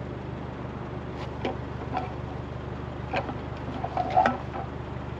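Scattered light clicks and knocks of plastic electric-fence reels being picked up and handled on a metal bar, with a short squeak about four seconds in, over a steady low hum.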